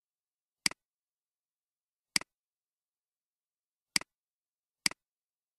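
Four clicks of a computer mouse, spaced unevenly with dead silence between. Each is a sharp click followed at once by a softer second tick, the button's press and release.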